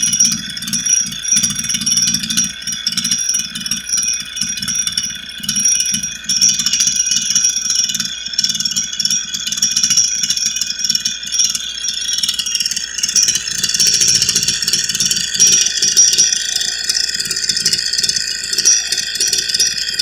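Stihl FS80 string trimmer's small two-stroke engine idling with a rattle, running on a newly fitted replacement carburetor. It gets a little louder and brighter in the second half.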